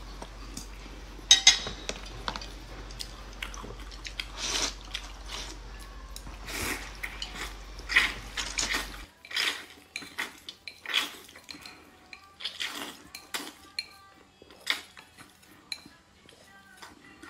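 Close-up eating sounds: chopsticks clicking against ceramic bowls and plates, with noodles being slurped and food chewed, in short irregular bursts.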